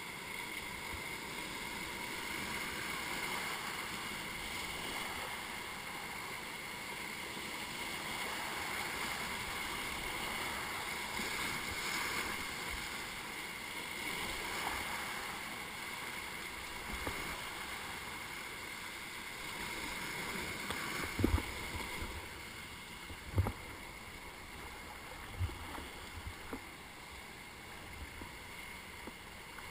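Whitewater rushing around a kayak running a rapid, a steady noise throughout. Near the end come a few short knocks.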